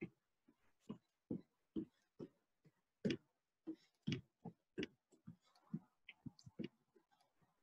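Feet landing on wooden deck boards while running in place with heel kicks: soft, uneven thumps at about two a second.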